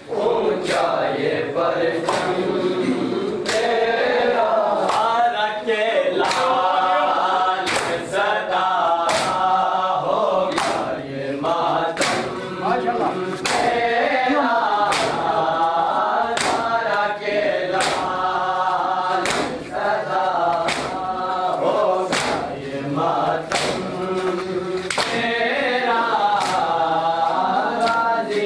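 A group of men chanting a noha in unison while beating their chests in matam, the hand-on-chest slaps landing together in a steady rhythm of about one a second.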